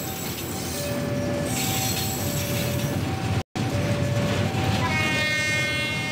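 Flat wagons loaded with rails rolling past over the track, with a level-crossing warning alarm beeping in two alternating tones. The sound cuts out for a split second just past the middle. Near the end a high, slightly rising squeal joins in.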